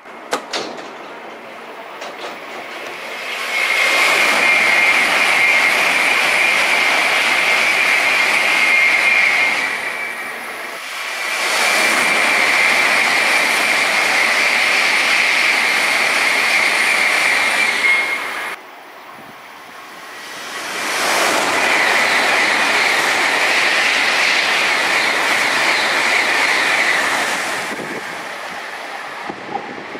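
Tokaido Shinkansen N700 series trains passing at high speed, three times: each pass swells into a loud rush of rolling and air noise with a steady high whine on top, then fades. The second pass cuts off suddenly.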